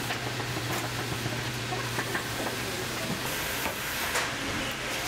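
Leather skiving machine at work: a steady motor hum under a scraping hiss as leather is thinned. The hum drops out about three seconds in while the hiss goes on.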